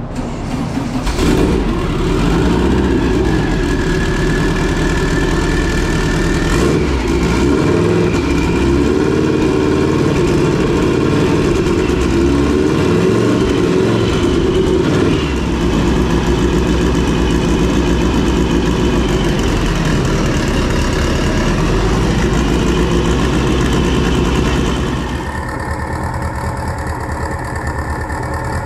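Custom-built 2332cc turbocharged, fuel-injected air-cooled VW flat-four running on an engine stand at its first start-up. It comes up in the first second or two, then runs steadily, with a thin whine above the engine note. About three-quarters of the way through the sound drops in level and the highest part falls away.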